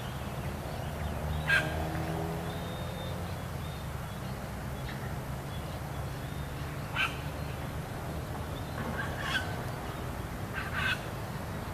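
Hitachi Zaxis excavator's diesel engine running steadily at low revs, with four brief sharp sounds spread through it.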